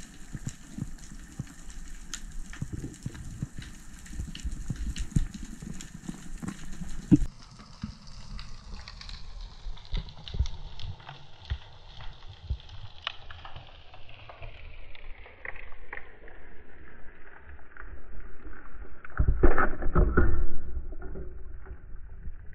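Underwater sound through a diving camera: a dense crackle of scattered clicks over a low water rumble, growing duller after about seven seconds, with a louder burst of rushing and knocking near the end.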